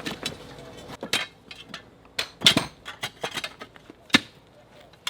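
A metal digging tool striking the ground as a fence-post hole is dug out: three sharp strikes about a second and a half apart, with lighter clicks between.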